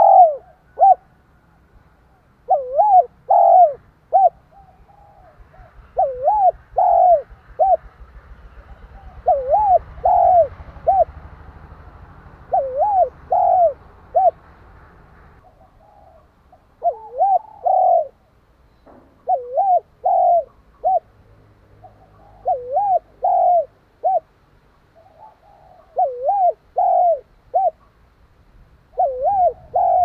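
Spotted dove cooing over and over, a three-note phrase about every three seconds: two looping notes and a short clipped last one. This is the fast, insistent call of a caged decoy male, used to rouse and lure wild doves.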